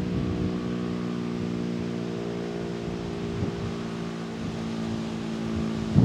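Federal Signal STL-10 outdoor warning siren sounding a steady low tone, its pitch holding level throughout.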